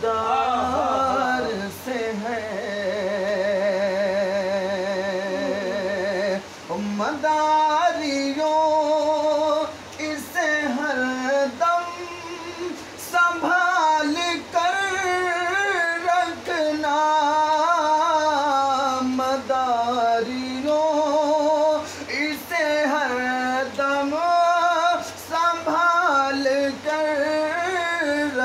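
A man singing a Sufi devotional kalam solo. About two to six seconds in he holds one long note with a wide vibrato, then moves into ornamented melodic phrases that rise and fall.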